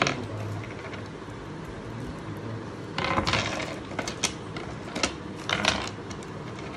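Jewellery and its packaging being handled during an unboxing: a few sharp metallic clicks and clinks, with two brief spells of rustling, one about three seconds in and one near five and a half seconds.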